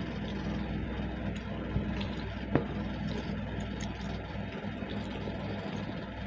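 A steady low hum, like a small motor or fan running, under the soft sounds of eating by hand: rice and curry being mixed and scooped from plastic plates and chewed, with a couple of sharp clicks, the clearest about two and a half seconds in.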